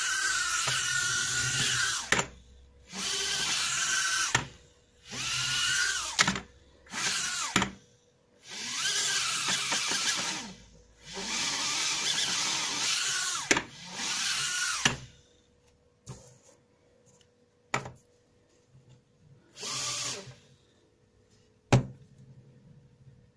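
F36 mini quadcopter's tiny motors and propellers whirring in repeated short bursts, the pitch rising and falling with the throttle, and sharp knocks as the drone touches down or bumps the table between bursts. The whirring is heavy for the first 15 seconds, then there are only scattered clicks and one last short burst.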